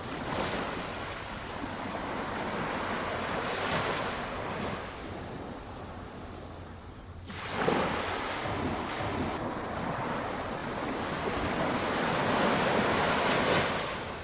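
Small waves on a calm sea breaking and washing up the shore in swells of rushing hiss. One wave breaks sharply about halfway through, and a longer wash builds near the end.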